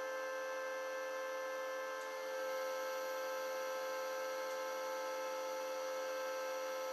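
Steady machinery hum made of several constant tones, unchanging throughout, typical of pumps and motors running in a building's heating and cooling plant.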